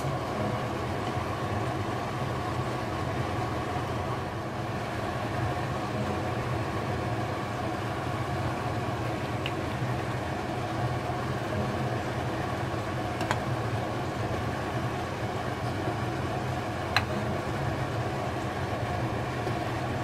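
A steady rushing hum with a few constant tones running under everything, with three faint short clinks of a metal ladle against the pot spread through it.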